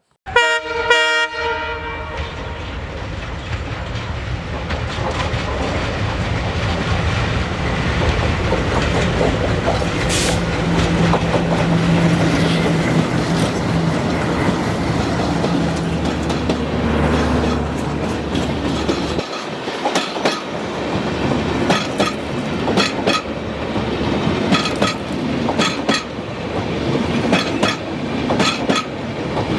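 An Indian express train's horn sounds briefly at the start, then the train passes close by with a steady rumble. From about twenty seconds in, its coach wheels clatter over the rail joints in a rhythmic clickety-clack.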